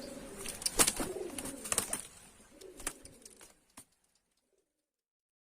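Domestic pigeon cooing, with a few sharp clicks among the coos. The sound cuts off to silence about four seconds in.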